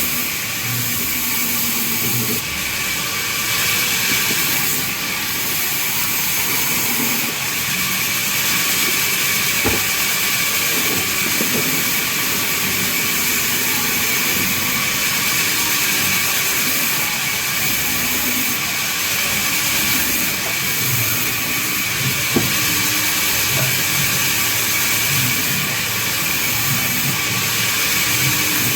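Band saw cutting babool (acacia) wood: a steady, hissing rasp of the blade through the timber over a low hum that shifts in pitch, with one sharp knock about 22 seconds in.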